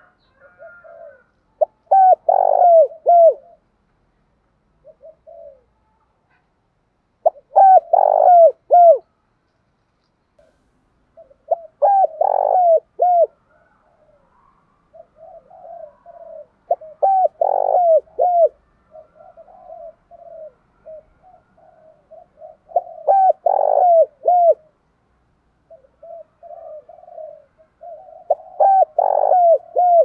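Spotted dove cooing: six loud phrases of several short coo notes, about one every five seconds, with softer cooing between them from the middle on.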